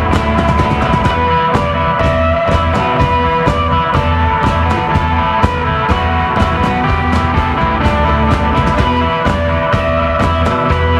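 Instrumental psychedelic desert rock played live by a guitar, bass and drums trio: held electric guitar tones over a steady, heavy bass line, with drums and frequent cymbal hits.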